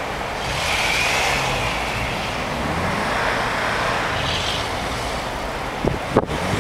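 Chevrolet Astro minivan's engine running under throttle as the van slides on snow, with a hiss of spinning tyres and snow that swells about half a second in. A few sharp knocks come near the end.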